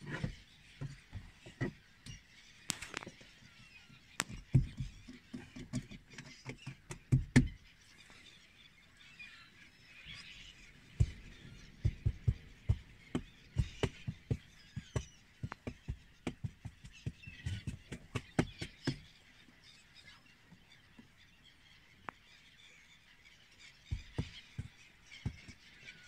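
A large feeding flock of gulls, black-headed gulls among them, calling in a dense mass of overlapping cries. Clusters of low thumps and knocks close to the microphone come and go several times.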